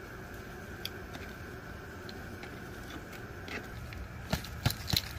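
A small plastic plant pot being handled and tipped by gloved hands while a plant's root ball is worked loose into soil: soft rustling and scraping, then three sharp knocks near the end, over a faint steady hum.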